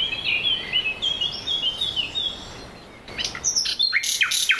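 Wild birds calling: a run of quick repeated chirps, then a few sharp falling calls from about three seconds in.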